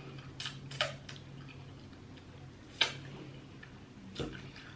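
Eating sounds: a few sharp mouth clicks and smacks, about four spread out, over a low steady hum.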